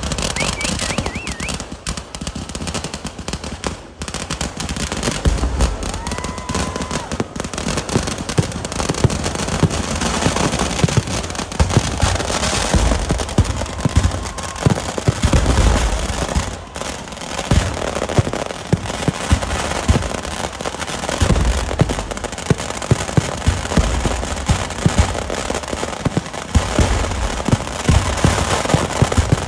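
Kerala festival fireworks (vedikettu) going off in a dense, continuous barrage: rapid bangs many times a second from aerial shells and ground firecrackers, over steady crackling and a deep rumble.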